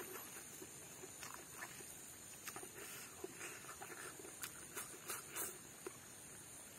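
Faint eating sounds of a man eating pork and rice by hand: soft chewing and scattered small mouth clicks and smacks over a low steady hiss.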